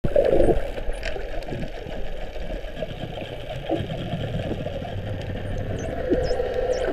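Underwater sound: a steady low drone of a boat engine carried through the water, with several short dolphin whistles that dip and rise in pitch in the second half.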